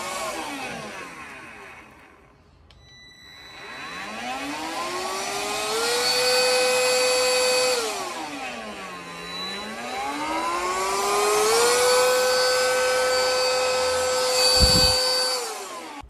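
Xiaomi portable handheld vacuum cleaner's motor whine winding down, then switched on and spinning up to a steady high-pitched run. About halfway through it winds down, then it spins up again and runs steadily before winding down at the end. A single knock comes shortly before it stops.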